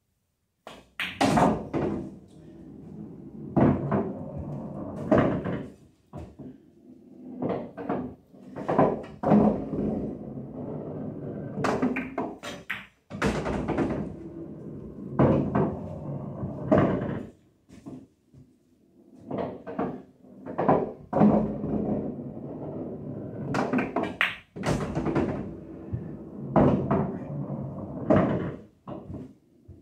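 Pool balls in play: a string of sharp clacks of cue tip on cue ball and ball on ball at irregular intervals, with rumbles of balls rolling and knocking into the pockets between them.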